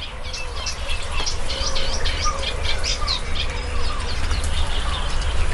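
Many birds chirping and calling over one another: a dense run of short high chirps with some lower falling calls, over a steady low rumble. It grows louder over the first couple of seconds.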